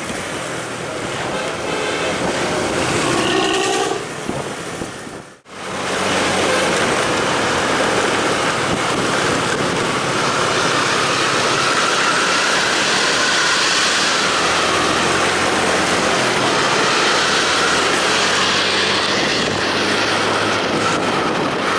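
Intercity bus running on the highway with a modified "snoring" (ngorok) exhaust: a loud, steady low drone under road and wind noise. The sound drops out sharply for a moment about five seconds in.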